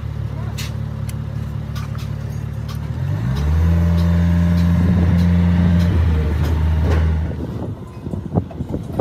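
Truck engine running steadily, revving up about three seconds in and holding there, then dropping off after about seven seconds; a few sharp clicks follow near the end.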